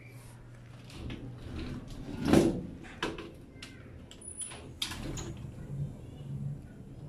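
A metal utensil scraping and clinking against a stainless steel mixing bowl while stirring a stiff flour-and-corn batter, in a string of short scrapes and clicks, the loudest about two and a half seconds in.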